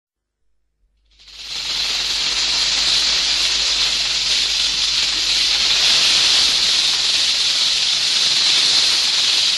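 A steady hiss, like white noise, that fades in quickly about a second in after silence and then holds at an even level.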